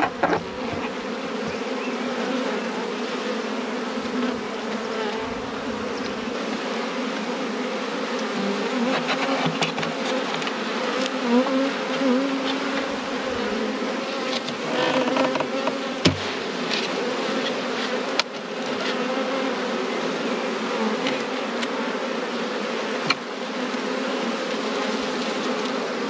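Honeybees buzzing in a steady, wavering hum around an open nuc hive as its frames are lifted out. A few sharp knocks come from the wooden frames being handled against the box.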